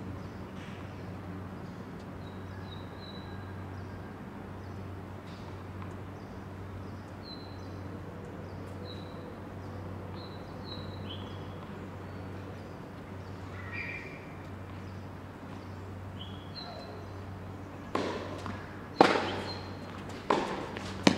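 Small birds chirping, short high notes repeated over and over, above a steady low hum. In the last few seconds a rally starts, with sharp pops of a tennis racket striking the ball and the ball bouncing on the hard court.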